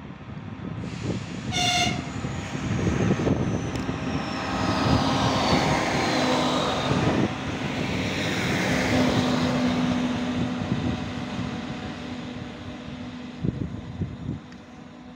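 Electric multiple unit in Lubuskie regional livery gives a short horn toot about two seconds in, then passes close by. The rumble of its wheels on the rails swells, with a steady low electric hum under it, and then fades as it goes away.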